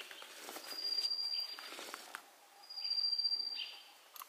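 A bird's thin, high whistled note, held for about a second and repeated every two seconds or so, with faint rustling of undergrowth between the notes.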